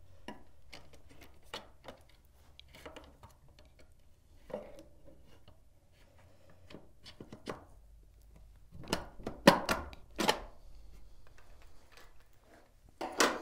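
Scattered light clicks and knocks of a spiral balance tensioning tool and the balance's metal pin as the balance is turned, pulled down and pushed into the tilt window's shoe, with a few louder knocks later on.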